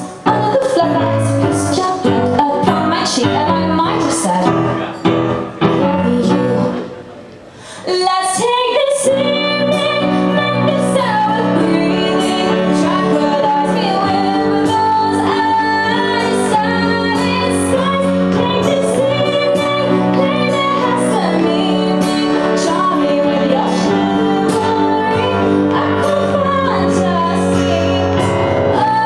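Live pop song: a woman singing over a Casio digital piano and an acoustic guitar. The music drops away briefly about seven seconds in, then the voice and the instruments come back in.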